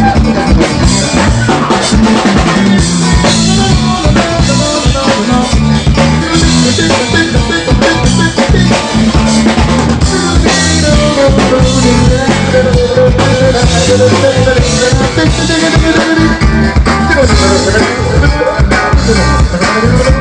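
Live band playing with a busy drum kit, bass and electric guitar. A single note is held for several seconds about halfway through.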